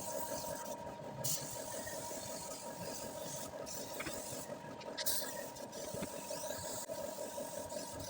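A machine running steadily, with a constant hum and a few light clicks.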